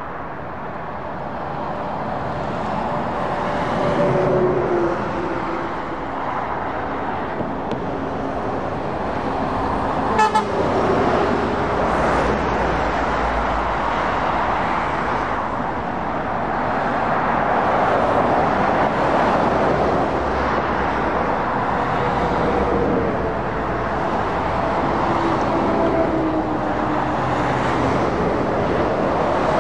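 Motorway traffic: heavy lorries and cars passing on a dual carriageway, with tyre roar and engine notes that drop in pitch as vehicles go by, a few seconds in and again near the end. A short horn toot sounds about ten seconds in.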